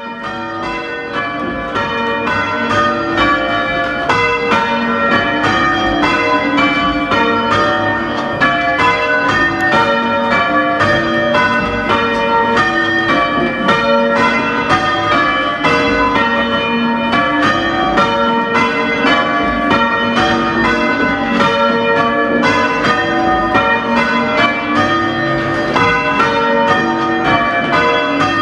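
A small ring of church bells being change-rung, the bells striking one after another in a steady, even rhythm with their tones ringing on over each other.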